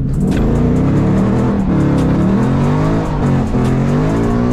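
S550 Ford Mustang drift car with a muffler-deleted exhaust being driven hard, its engine revving up and down several times, while its VCT solenoids were failing. Background music plays under it.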